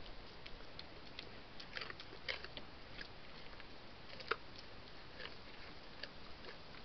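Deer chewing apples: faint, irregular crunches and clicks, the sharpest one about four seconds in.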